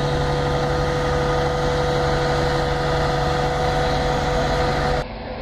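Heavy diesel engine of the heavy-haul equipment moving a 16-inch gun barrel, running at a steady speed with a constant hum. About five seconds in it cuts off abruptly to a quieter engine sound.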